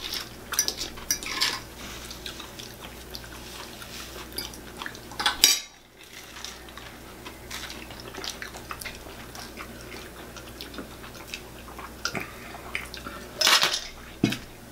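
A fork clinking and scraping on a plate, with scattered small taps and clatters of tableware during a meal; louder clatters come about five and a half seconds in and again near the end.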